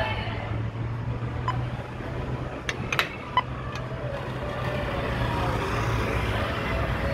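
City street traffic ambience: a steady wash of distant car noise with a constant low hum, and a few short clicks about halfway through.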